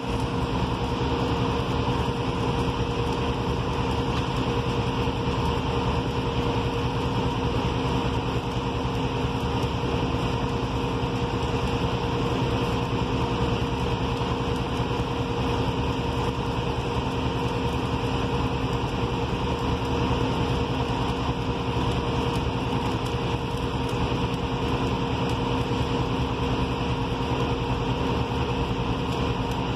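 Steady engine drone with a constant hum, mixed with the hiss and crackle of several arc welders working on steel beams.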